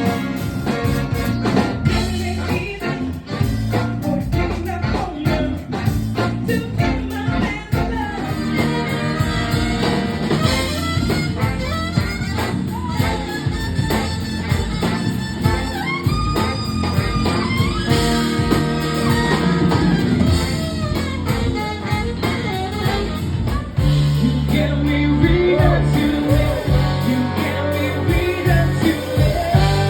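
A soul band playing, with singing over guitar and a band backing. About three-quarters of the way through the bass comes in stronger and the music gets fuller.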